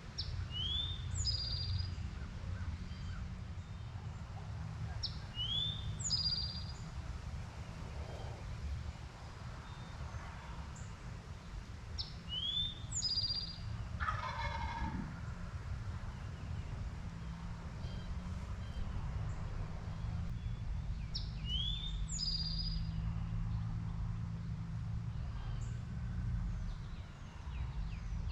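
A wild turkey gobbles about midway, a rattling call that falls in pitch. A songbird repeats a short high phrase every five to seven seconds, over a steady low rumble.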